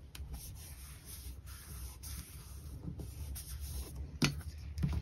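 Hands rubbing and handling sheets of paper and card, a soft scratchy rustle, with two short sharp taps near the end.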